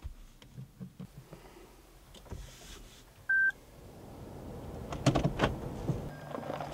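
A single short electronic beep from inside a Toyota Camry's cabin, then the car's tyres crunching on gravel as it pulls away, with a few sharp knocks of stones under the wheels.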